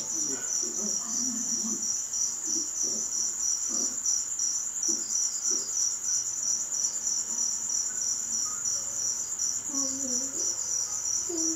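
Crickets chirping steadily in an even, rapid, high-pitched pulsing trill.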